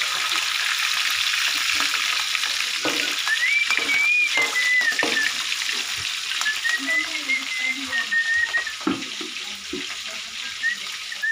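Fish frying in hot oil in a wok, a steady sizzle, with a few knocks from the spatula. Twice in the middle a thin, wavering whistle-like tone sounds over the frying.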